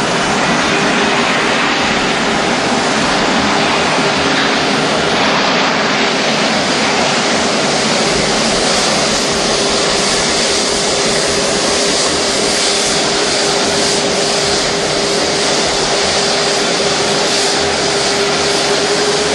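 Loud, unbroken rumbling roar from overhead with a steady droning tone that rises slightly near the end: the sound heard in the night sky over Java, taken for a low-flying Antonov An-12BP four-engine turboprop.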